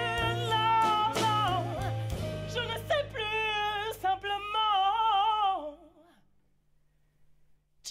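A woman sings a wavering melody with heavy vibrato into a microphone, backed by a live band with electric guitar and a low sustained bass. The voice and band fade out about six seconds in, leaving near silence.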